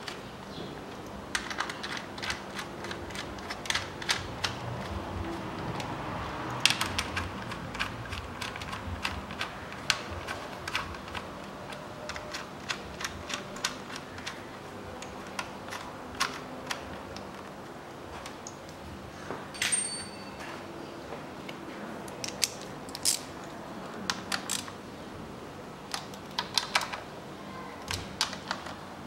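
Hand ratchet clicking in short runs, with pauses between, as the ignition coil hold-down bolts are run in and snugged up; one sharper metallic clink about two-thirds through.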